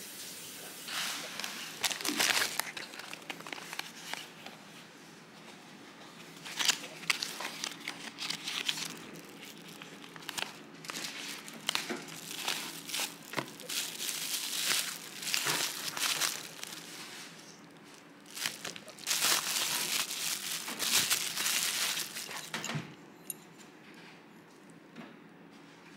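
Crinkling and rustling handling sounds in irregular bursts of a second or so, busiest and loudest around 19 to 22 seconds in, then dying down.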